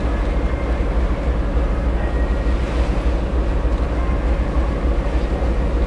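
Steady low rumble and hiss heard from the deck of a ship, where the vessel's engine and wind noise mix with the distant sound of a twin-jet airliner climbing out after takeoff.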